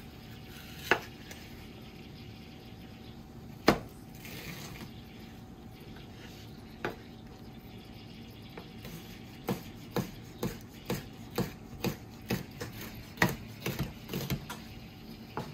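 Kitchen handling knocks on a counter or board: a few scattered knocks, the loudest a few seconds in, then a quick run of about a dozen taps and knocks, roughly two a second, through the second half.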